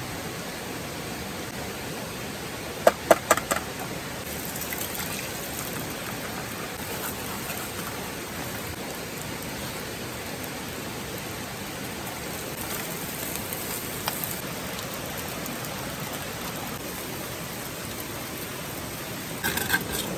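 Steady rushing noise, with a quick cluster of sharp knocks about three seconds in and another short cluster near the end.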